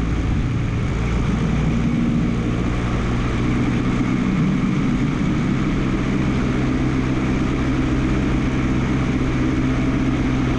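Single-engine piston light aircraft's engine and propeller running steadily at about 2000 RPM for the pre-takeoff run-up, mixture full rich, heard from inside the cockpit.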